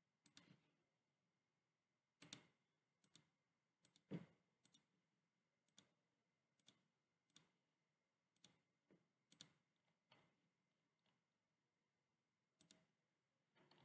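A computer mouse button clicking faintly, about fifteen single clicks at uneven intervals.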